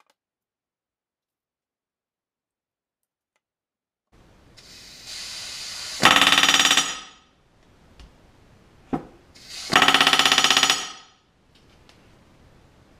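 Pneumatic rivet gun back-riveting a practice rivet against a steel back-riveting plate. It starts about four seconds in with a rising air hiss as the trigger is eased open, then gives two loud, rapid hammering bursts of about a second each, about four seconds apart.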